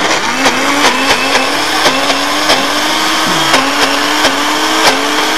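Electric blender running, blending a thick beetroot-and-chickpea hummus paste; it starts abruptly and its motor note dips and recovers several times as the mixture catches on the blades.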